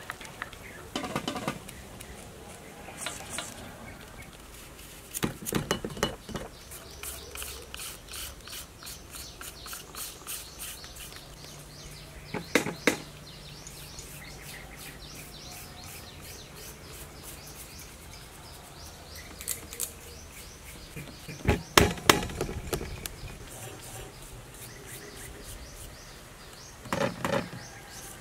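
A small kitchen knife peeling a carrot and a white radish by hand: quick runs of short scraping strokes, with a few sharper knocks and clatters now and then. Birds chirp faintly behind.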